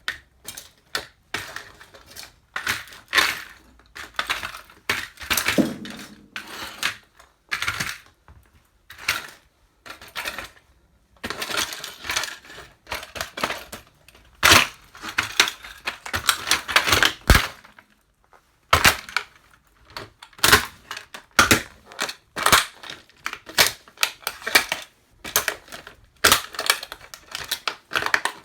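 Plastic toy truck cracking and snapping under boots, a run of irregular sharp cracks and clicks, thicker for several seconds in the middle, with small loose pieces rattling.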